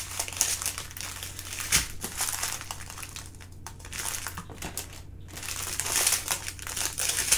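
Small plastic zip-lock bags of diamond-painting drills crinkling and rustling as they are handled and sorted. The crinkling thins out in the middle and picks up again near the end.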